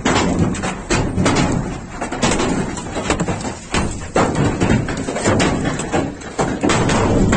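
Large hailstones falling hard and striking surfaces: a dense, continuous clatter of many knocks and thuds, uneven in level.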